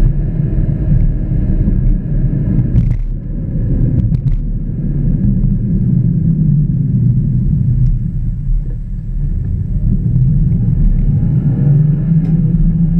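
Car engine and road noise heard from inside the cabin while driving. The engine eases off around the junction and then pulls away, its note rising near the end, with a couple of short knocks about three and four seconds in.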